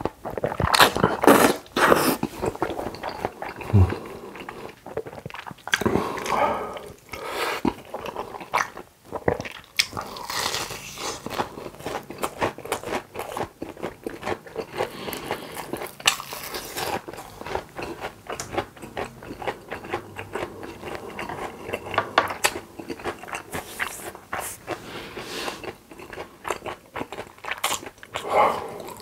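Close-miked eating: slurping noodles near the start, then crunching and chewing crispy fried food, with many small wet mouth clicks.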